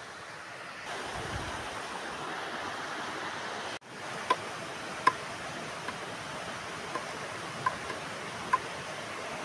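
A machete blade striking a section of green bamboo: short, sharp knocks with a brief ringing tone, about one a second, starting a few seconds in, over the steady rush of a stream.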